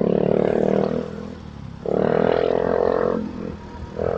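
Sound of a motorcycle being ridden, heard from the rider's helmet microphone: a steady low running hum with three loud, steady-pitched bursts, each about a second long.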